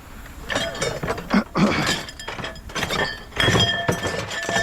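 Pieces of scrap metal being thrown onto a scrap pile: a run of clattering, clanging hits, several leaving a ringing tone, the longest near the end.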